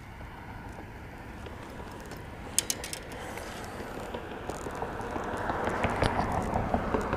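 Fishing reel being cranked: its gears run with rapid clicking, building up over the last few seconds, after a short burst of sharp clicks about two and a half seconds in.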